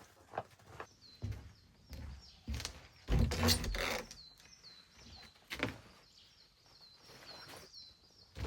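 A small songbird calling outdoors with short high notes repeated about three times a second, over irregular crunching steps in snow, with a louder rustling crunch about three seconds in.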